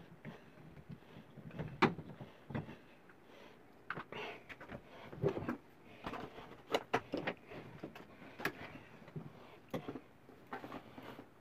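Irregular clicks, knocks and light rattles of hand tools and faucet parts being handled at a tub-and-shower valve, with the sharpest knocks about two seconds in and near the middle.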